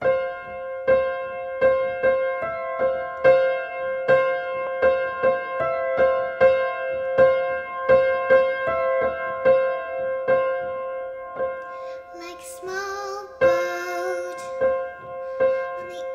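Upright piano playing a steady pattern of repeated chords. About twelve seconds in, a young girl starts singing over it.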